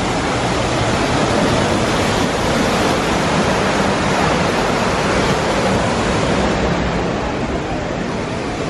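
A waterfall pouring down rockwork: a loud, steady rush of water, a little quieter near the end.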